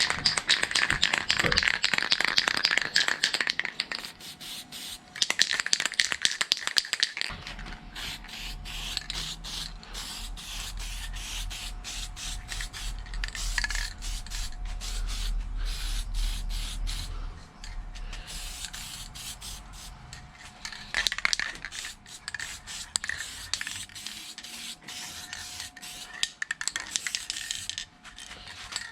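Aerosol can of satin black spray paint hissing in bursts as a part is sprayed: a long burst at the start, another a couple of seconds later, and a short one about two-thirds of the way through. A low hum runs underneath through the middle.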